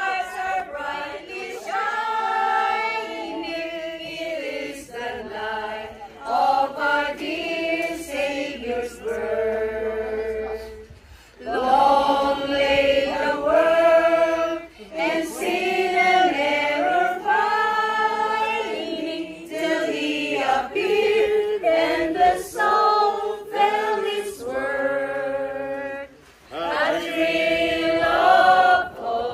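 A mixed group of men and women singing together from song sheets, in long held phrases, with short breaks between lines about 11 seconds in and near 26 seconds.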